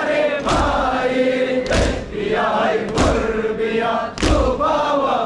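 Group of male mourners chanting a noha in unison, punctuated by collective chest-beating (matam) that lands as a sharp thump about every second and a quarter, four strikes in all.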